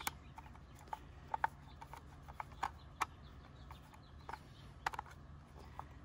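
Light, irregular clicks and ticks of a hand screwdriver driving screws to mount a receptacle in its box, the tip clicking against the screw heads and the box.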